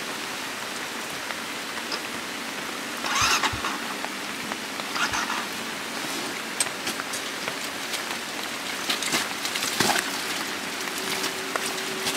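Steady rain falling, an even patter with scattered ticks, and two brief louder bursts of noise about three and five seconds in.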